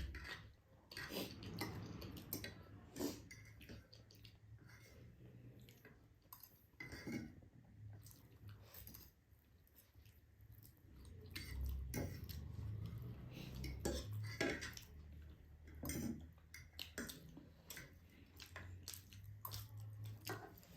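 Eating sounds: chewing ramen noodles, with utensils clinking against a bowl now and then.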